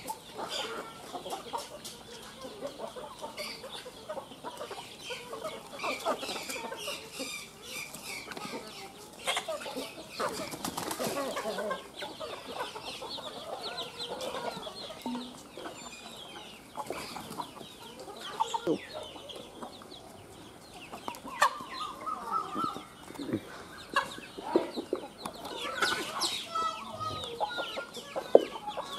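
A flock of chickens, hens and roosters, clucking and calling over one another as they crowd around feed, with bursts of wing flapping.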